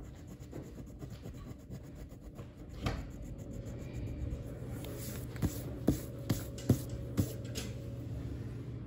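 A drawing tool rubbing across paper as a picture is coloured in, with a handful of light clicks, most of them between about five and seven seconds in, over a steady low hum.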